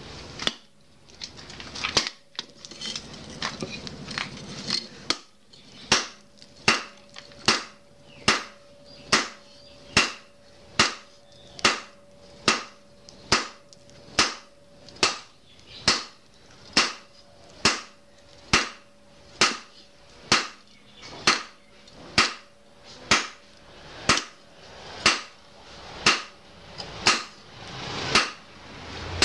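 Hand hammer forging a red-hot 52100 bearing-steel parang blade on a round steel anvil: evenly spaced hammer blows, a little more than one a second, with the anvil ringing on between strikes. The regular hammering starts about five seconds in, after a few scattered clanks.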